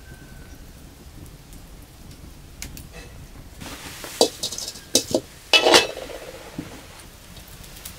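Dishes, pots and utensils being handled: a run of sharp clinks and knocks, busiest around the middle, with a short clattering burst a little past halfway.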